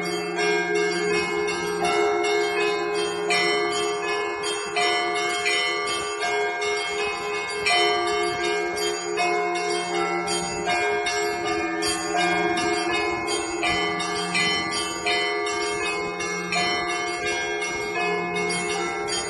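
Russian Orthodox church bell ringing by a single bell ringer: small bells struck rapidly and steadily over higher bells in a repeating rhythmic pattern, with a lower bell sounding on and off underneath.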